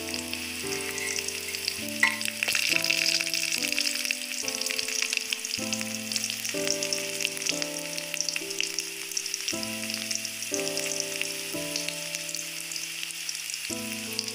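Sliced onions and dried red chilli sizzling and crackling in hot oil in an aluminium kadhai, frying soft for the tadka of dalma, with one sharp tap about two seconds in. Soft background music with slow stepped notes plays underneath.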